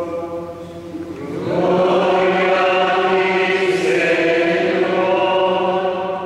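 Many voices singing a slow liturgical chant response together in a reverberant church. The singing comes in about a second in, just after a man's chanted line ends, holds steady and fades near the end.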